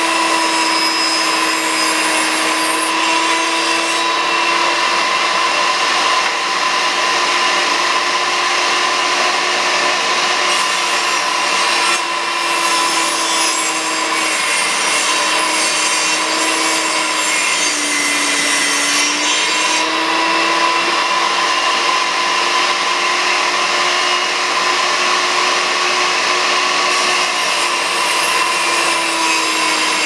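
Benchtop table saw running and cutting cedar boards: a steady motor whine with rough cutting noise over it, the motor's pitch sagging under load in the middle and recovering as each cut ends.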